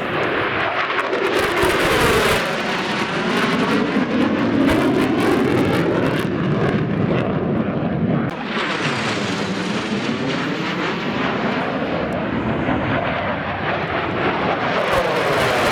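Aircraft flying low past the listener with a loud, continuous roar. The pitch sweeps up and down as it passes, and the sound dips briefly about halfway before building again.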